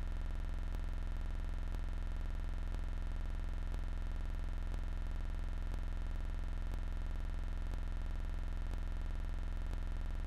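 Steady low electrical hum with a buzzy edge, unchanging throughout, with faint ticks about once a second.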